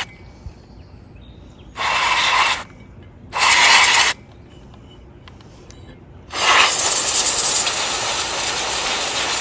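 Aerosol cleaner hissing from a spray can's straw nozzle onto a sewing machine motor's armature: two short bursts, then a longer spray from about six seconds in.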